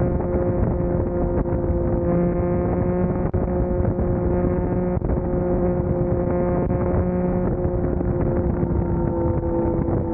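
Motorcycle engine running at a steady cruise, its pitch holding nearly constant, with wind rushing over the microphone.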